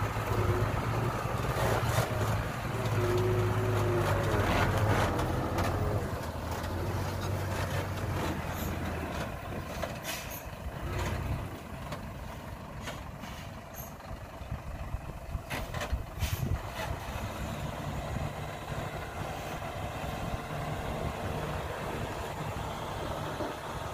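Diesel engine of a loaded cab-over dump truck running, strong and close for the first several seconds, then fainter. From about two-thirds of the way in a steady low drone sets in as the tipper bed is hoisted to dump its load of earth.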